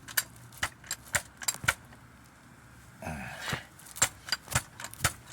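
Irregular sharp metallic clicks and clinks of a ratchet and 17 mm socket being worked on fasteners under the car to loosen them.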